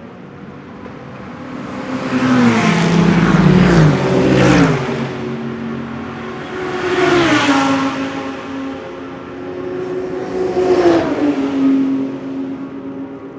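GT3 race cars going past at speed, one pass after another: three loud swells, the first and loudest a few seconds in, each engine note sliding down in pitch as the car goes by.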